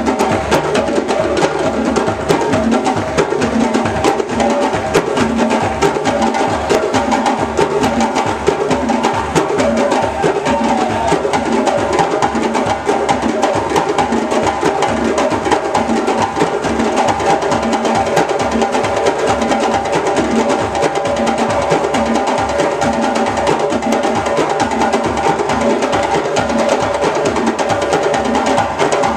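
West African drum ensemble playing a dense, steady rhythm on djembes and dunun barrel drums, sharp hand slaps over deeper bass strokes.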